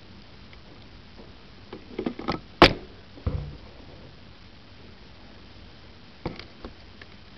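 A cluster of sharp clicks and knocks, the loudest a single sharp crack about two and a half seconds in followed by a duller thud, then a few lighter clicks near the end over a faint steady hiss.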